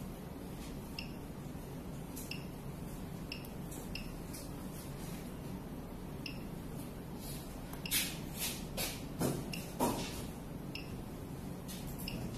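Veterinary ECG machine giving short, faint high beeps every second or so over a steady low hum, with a handful of clicks and rustles about eight to ten seconds in.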